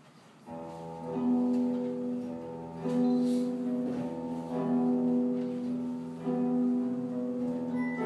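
Slow instrumental music starts about half a second in, with long held notes that change every second or two.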